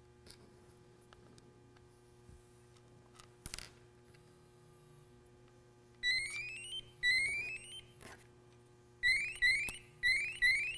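Sperian ToxiPro gas detector's audible alarm sounding rising chirps: two about a second apart, then four quicker ones about half a second apart. A faint click comes a few seconds before the chirps.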